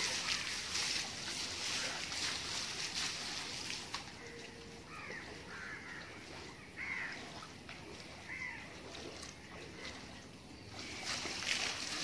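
Water splashing and sloshing as it is thrown over an elephant lying in a shallow river. The splashing eases off about four seconds in, leaving a few short chirps, and picks up again near the end.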